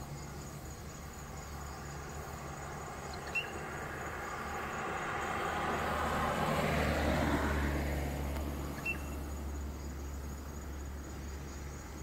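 A car passes along the road, its tyre and engine noise swelling to a peak about seven seconds in and then fading, over a steady high insect drone. Two short high chirps, about five seconds apart.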